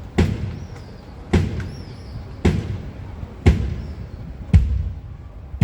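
A single drum of a drum kit struck alone at a slow, even pace for a sound check, six hits about a second apart, each with a deep boom that rings on briefly.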